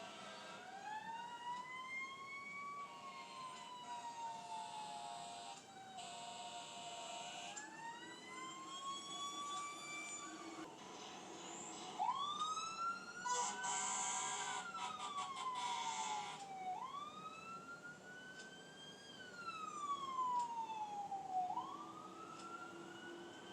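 Fire truck siren wailing, rising and falling in slow sweeps of a few seconds each, with blasts of its air horn sounding over it; the longest horn blast comes about halfway through.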